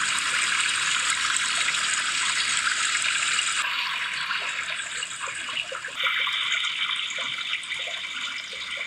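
iPhone's iOS 15 Background Sounds 'Stream' sound playing: a steady, hissy rush of running water that starts suddenly and shifts in tone twice, about a third and two-thirds of the way through.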